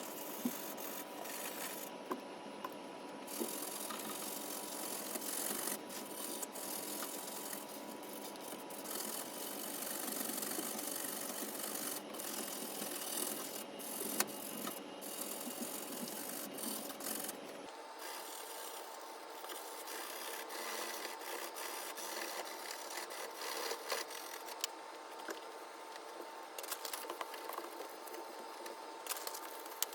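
Scrubbing by hand: a scourer or brush rubbed hard over a surface in continuous rasping strokes, with small clicks and knocks. About two-thirds through the sound changes abruptly and becomes thinner.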